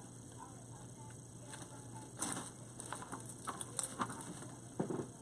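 Faint, irregular small clicks and rustling from handling artificial floral picks and other wreath-making materials, starting about two seconds in.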